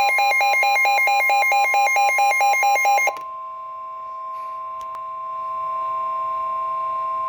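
Emergency Alert System alert tones before a flash flood warning: a loud electronic alarm tone rapidly switching back and forth in pitch. About three seconds in it cuts off abruptly to the steady two-tone attention signal, which starts quieter and grows louder about two seconds later.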